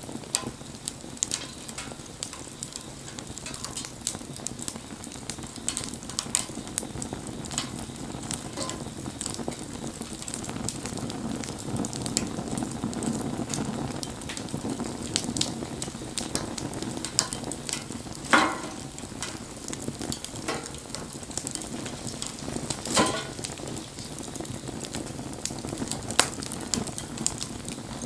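Wood fire burning, crackling with many small sharp pops over a steady low rush of flame. Two louder pops stand out about two-thirds and four-fifths of the way through.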